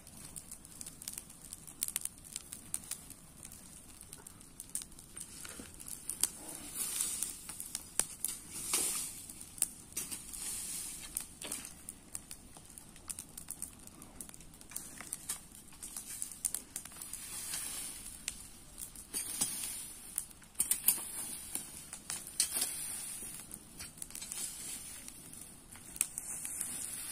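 Dry leaves and corn husks rustling and crackling under a garden rake dragged over the ground, with an open brush fire crackling, full of irregular sharp snaps.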